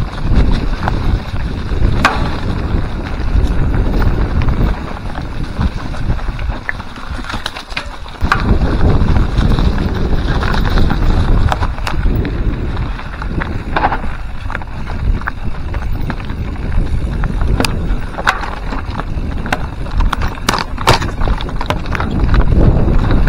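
Wind buffeting the microphone of a mountain bike descending a rough singletrack, with the bike rattling over the trail and frequent sharp knocks from wheels striking roots and rocks. It eases a little for a few seconds in the first third, then picks up again.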